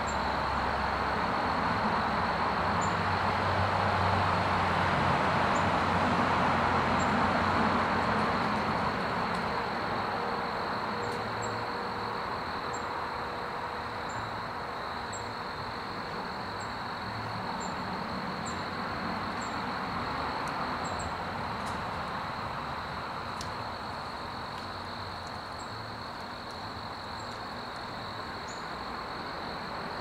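Backyard ambience: a steady rush of distant road traffic that swells for several seconds near the start and then eases off, under a continuous high insect drone. Faint high ticks come about once a second.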